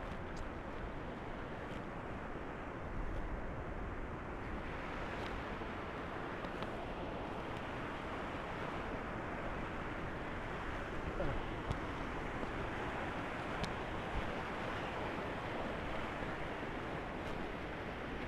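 Steady wash of surf on a beach, with wind on the microphone and a few faint clicks.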